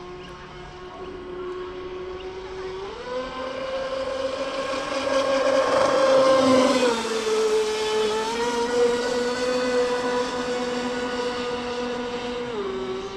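Large electric RC speedboat (TFL Shark) running on 6S, its motor and propeller making a steady whine. The pitch steps up about three seconds in as the throttle opens, dips briefly near the middle, where it is loudest, and drops back near the end.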